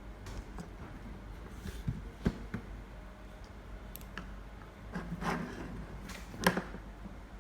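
Hands handling plastic toy slime-kit parts: scattered soft clicks, taps and rustles, with sharper clicks about two seconds in and at four seconds, and the loudest click near the end.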